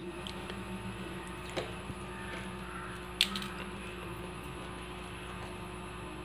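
Quiet room tone with a steady electrical hum and a few faint light clicks, one sharper click about three seconds in.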